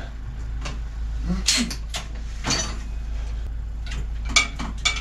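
Metal clanks and rattles of a folding tandem bicycle being lifted and clamped into a workshop repair stand, with several sharp knocks spread through it. A steady low hum runs underneath.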